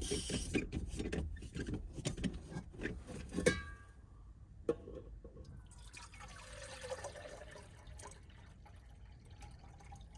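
Water poured from an insulated steel bottle into a Jetboil cup, its pitch rising as the cup fills. Before it come a few seconds of clicks and rattles from handling the stove, over a low rumble from wind gusting against the truck.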